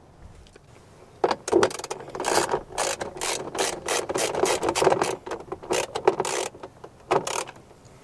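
A 3/8-drive ratchet with a 7mm socket clicking as it runs a door-panel screw in, rapid strokes for about five seconds. A short burst of clicks follows near the end.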